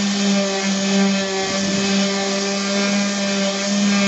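A handheld electric power tool running steadily at speed, cleaning the metal roof surface around the hole: a steady whine with many overtones.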